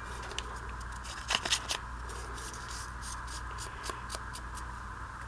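A torn scrap of old book paper being handled and dabbed around its edges with an ink blending tool: soft paper rustling and light taps, with a few louder crinkles about a second and a half in. A steady hum and hiss runs underneath.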